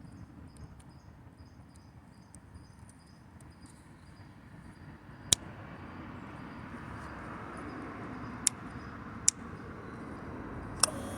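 Faint crickets chirping over low background noise, which grows louder in the second half. Four sharp clicks cut through: one about five seconds in and three more near the end.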